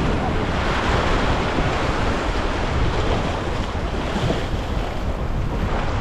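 Steady wind buffeting the microphone, a constant low rumble, with the wash of waves behind it.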